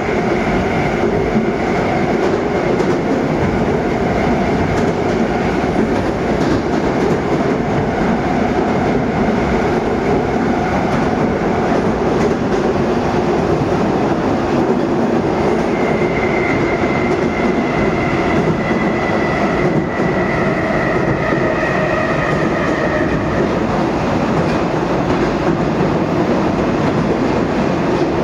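Interior running noise of a "Moskva 2024" 81-775.2/776.2/777.2 metro train in motion: a steady, loud rumble of wheels on rail and tunnel noise. A thin high whine comes in about halfway through and fades out a few seconds later.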